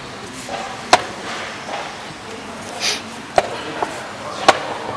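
Wooden chess pieces set down on a wooden board and a chess clock's button pressed during quick play: four sharp clicks and knocks, the loudest about a second in and near the end.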